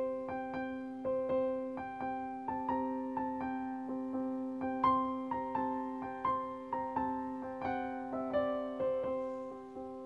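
Background music: a piano-like keyboard playing a slow melody of single struck notes, about two a second, over steady held low notes.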